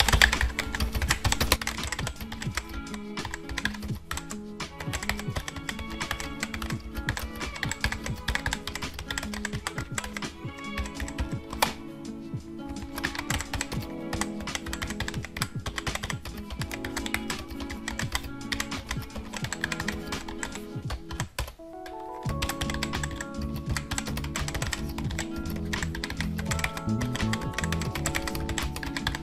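Rapid computer-keyboard typing clicks, a sound effect that runs on without pause, over background music with sustained tones. The music drops out briefly about 21 seconds in and then starts again.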